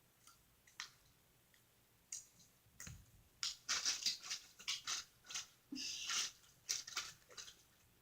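Sticky, wet squishing and crackling clicks of a shampoo-and-cornstarch slime being mixed. They start about two seconds in and come thicker toward the end.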